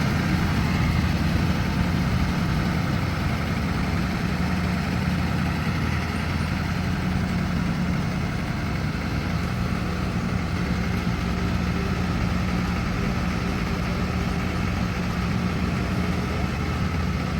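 Bus engine idling steadily with an even low drone.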